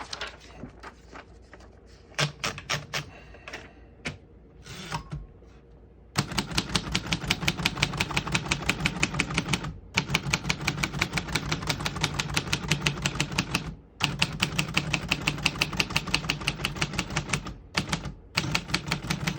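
1948 Royal Quiet De Luxe manual portable typewriter being typed: a few scattered clicks and key strokes, then from about six seconds in a fast, even run of type bars striking the platen at about six or seven strokes a second, broken three times by short pauses.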